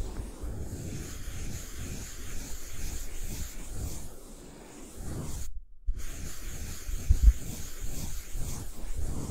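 Close-miked scratchy rubbing as the tip of a thin stick works over a small object held in the palm, ASMR-style. The sound cuts out completely for a moment about halfway through, and a couple of soft knocks follow shortly after.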